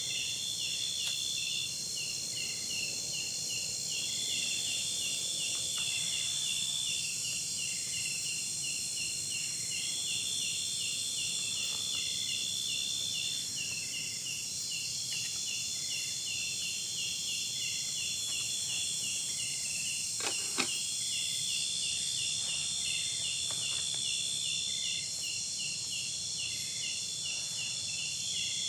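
Steady chorus of insects: several high trills and pulsed chirps overlapping, with long trills of a few seconds each coming again and again, and a single short click about twenty seconds in.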